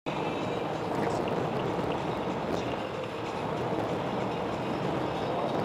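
Steady road and tyre noise of a car cruising at freeway speed, heard from inside the cabin.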